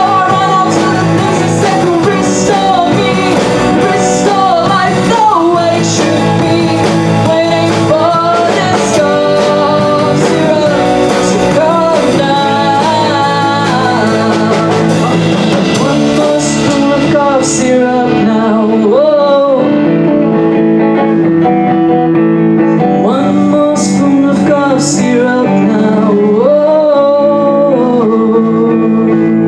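Live rock band playing with lead vocals over electric guitars, bass and drums. About two-thirds of the way through, the bass and drums drop away, leaving voice and guitars with a few cymbal hits near the end.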